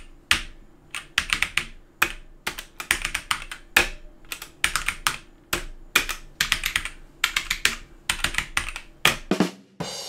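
Typing on mechanical keyboards with Outemu switches (Dierya 60% boards): clusters of quick keystrokes with short pauses between them, each key a sharp click.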